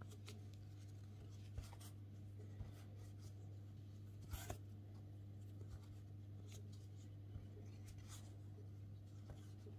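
Faint scratchy rustling and a few soft clicks of a crochet hook drawing thick T-shirt yarn through single crochet stitches, over a steady low hum.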